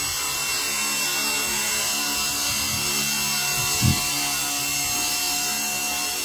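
Blade 130X micro RC helicopter's brushless main and tail motors whining steadily at high speed, with the buzz of the spinning rotors. A short low thump about four seconds in.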